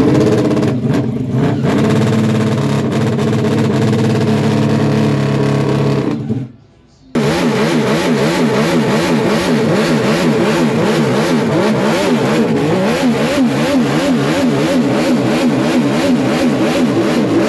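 Vintage racing motorcycle engine running at a steady fast idle, then revved in quick repeated throttle blips, about two a second. The sound drops away briefly about six seconds in and comes back.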